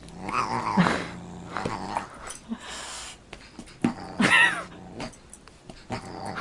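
A dog growling in play as it spars with a cat, in short irregular bursts. The loudest bursts come about a second in and about four seconds in.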